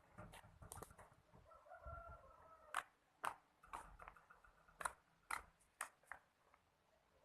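Slime being squeezed and worked by hand: a string of sharp pops and clicks from trapped air, with a short squeaky tone about two seconds in.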